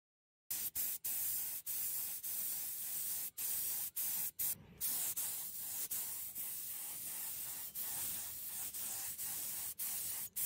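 Spray paint hissing in long steady passes, cut by many brief drop-outs, as black paint goes onto a motorcycle brake disc's hub.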